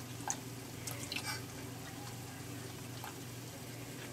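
Skim milk pouring in a thin stream into a stainless steel mixing bowl of cracked eggs, splashing and dripping, with a few short clicks about a second in.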